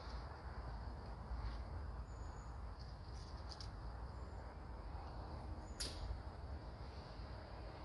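Faint woodland ambience: short high bird chirps over a steady low rumble, with light rustling and handling of dead sticks in leaf litter. One sharp high click comes just before six seconds in.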